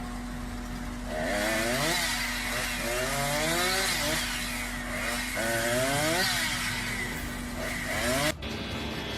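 Two-stroke chainsaw idling, then revved up and down several times from about a second in, each rev a rising and falling whine. It cuts off suddenly near the end.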